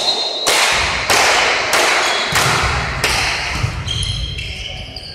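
Volleyball being struck and bouncing, about five sharp thuds a little over half a second apart, echoing around a large sports hall.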